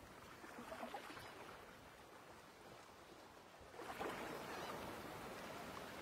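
Faint steady rushing noise of outdoor air, louder from about four seconds in.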